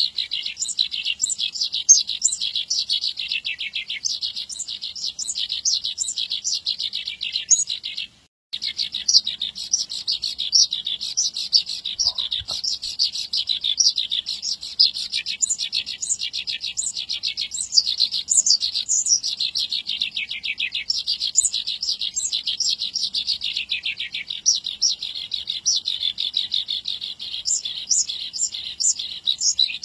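Javan bush lark (branjangan) in full song: a fast, unbroken stream of high chattering and trilled notes, with a short break about eight seconds in.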